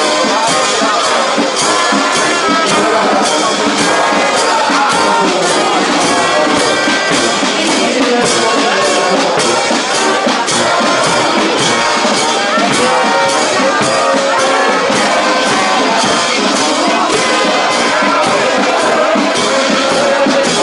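Marching brass band playing a march, with trumpets and trombones over a steady bass-drum beat and a crowd's chatter beneath.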